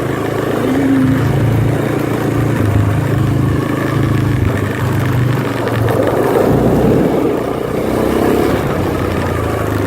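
A small ATV (four-wheeler) engine running under way, its pitch wavering with the throttle, louder for a couple of seconds about six seconds in.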